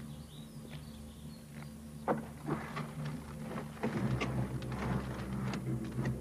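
A few faint bird chirps, then from about two seconds in a run of knocks and scrapes of wood as overhead wooden boards and beams are worked by hand, over a low steady hum.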